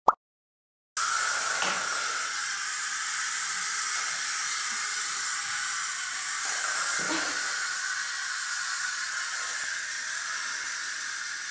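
A loud, steady background hiss starts abruptly about a second in, after a brief silence, with a couple of faint soft knocks over it.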